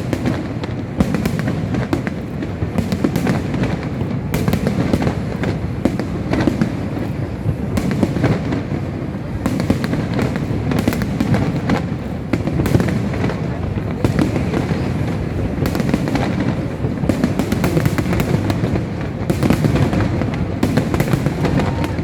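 Fireworks display: aerial shell bursts going off in quick succession with no pause, many sharp bangs and crackles over a continuous low rumble.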